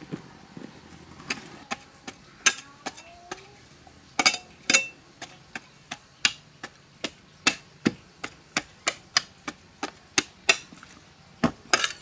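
A hammer striking repeatedly in irregular runs of sharp blows, at times three or four a second, with short pauses between runs.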